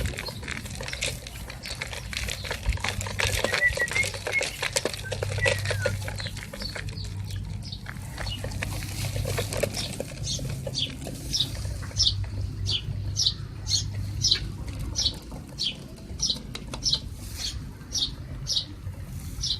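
A run of short, high calls from an animal, each falling in pitch, about two a second, starting about halfway through. Before them comes a dense patter of clicks with a few faint chirps.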